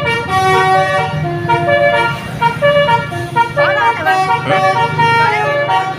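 Indonesian bus 'telolet' musical air horn playing a melody of held notes that step up and down in pitch, over a bus engine's low rumble. The horn tune stops near the end.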